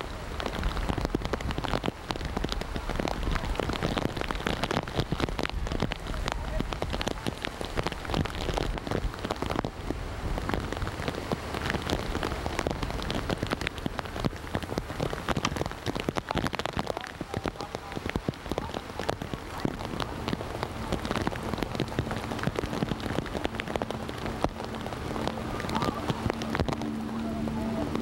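Steady rain falling, a dense patter of drops. There is a low rumble in the first several seconds, and a low steady hum comes in during the last several seconds.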